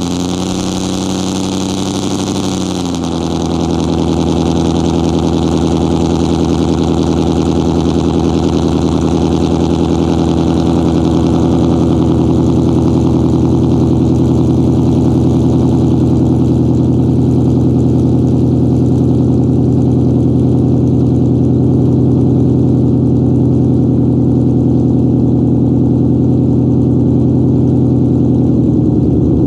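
Straight-piped 2015 Ford Mustang GT's 5.0 Coyote V8 idling loudly through open dual exhausts after a cold start. Its pitch steps down a little about three seconds in, then holds steady.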